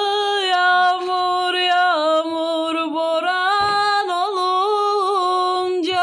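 A woman's solo voice singing a Turkish folk song (türkü) unaccompanied, holding long notes with small wavering ornaments between them.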